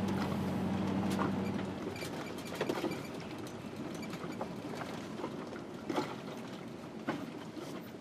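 Cab noise of a motorhome with a 7.4-litre Chevy 454 V8, rolling slowly onto a gravel lot: a low engine hum that fades after about two seconds, then steady road noise with scattered clicks and rattles.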